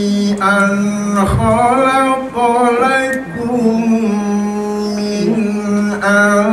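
Music with singing: a voice sliding through ornamented notes over a steady held low note.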